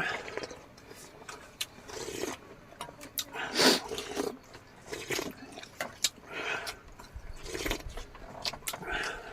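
Eating sounds: chewing and mouth smacks in irregular short bursts with sharp clicks, the loudest a little under four seconds in.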